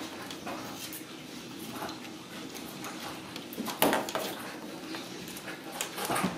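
Ragdoll kittens scampering and pouncing on a hardwood floor, their paws and claws scrabbling against the wooden panelling and curtains, with scattered light knocks and thumps. The loudest knock comes about four seconds in.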